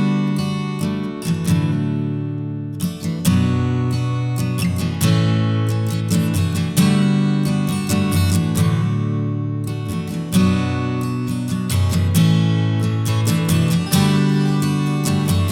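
Background music: acoustic guitar strummed in a steady rhythm of repeated chords.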